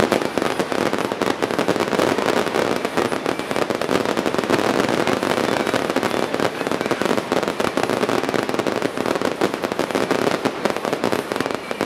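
Fireworks crackling: a dense, continuous stream of rapid small pops and crackles from low glittering bursts.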